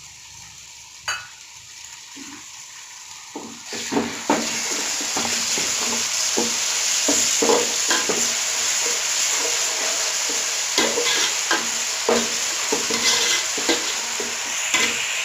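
Ginger-garlic paste going into hot oil and fried onions in a pan. A loud sizzle breaks out about four seconds in and keeps going, while a spoon stirs and knocks against the pan.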